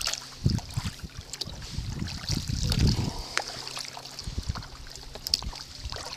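Kayak paddle strokes splashing in lake water and water lapping along the plastic hull, with irregular low rumbles.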